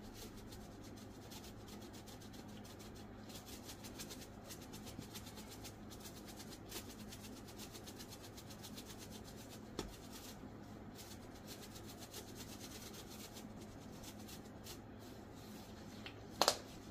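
A plastic shaker jar of dried thyme leaves being shaken over a pot: a soft, steady scratchy rattle of dried herb through the sifter lid, over a low steady hum. A sharp click near the end.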